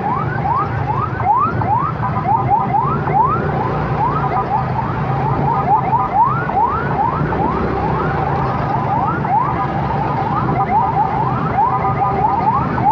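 Electronic siren or alarm sounding in quick rising sweeps, about two a second, now and then switching to short steady beeping tones, over the low running of engines in stop-and-go traffic.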